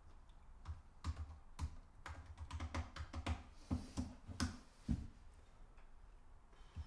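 Typing on a laptop keyboard: a run of irregular keystrokes that stops about five seconds in.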